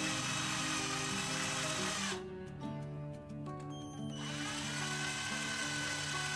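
Xenon cordless drill's DC motor and gearbox running with a steady whine. It stops about two seconds in, starts again about four seconds in and settles back into a steady whine.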